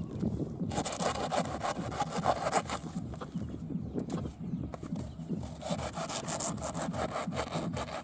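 A hand saw cutting through soft, fibrous banana tree trunks in quick back-and-forth strokes, with a short break a little past the middle.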